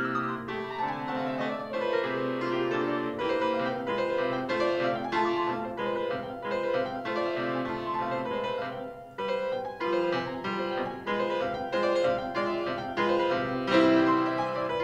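Petrof grand piano played solo: a quick falling run in the first couple of seconds, then a stream of notes and chords, with a brief drop in level around nine seconds and a loud chord near the end.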